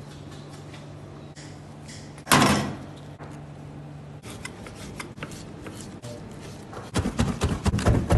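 Kitchen handling sounds over a low steady hum that stops about four seconds in: one heavy thud about two seconds in and scattered small clicks. Near the end comes a quick run of knife strikes on a cutting board, chopping meat.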